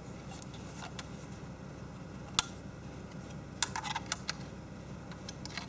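Scattered light clicks and taps of small laptop hardware being handled, with a sharp click about two and a half seconds in and a quick run of clicks near four seconds, over a steady low hum.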